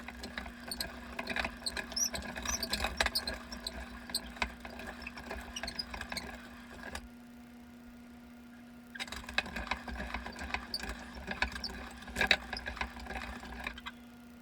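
Weston No. 32 hand-cranked meat grinder being turned, with squeaking and clicking from the crank and auger as meat is pushed through. It comes in two spells, broken by a pause of about two seconds in the middle.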